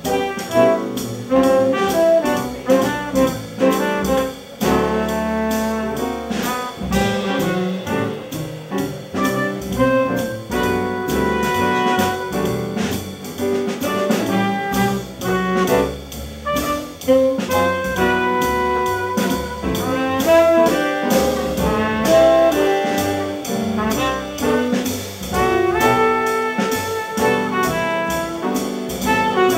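Small jazz band playing live: trumpet and tenor saxophone playing together over upright bass, piano and drums.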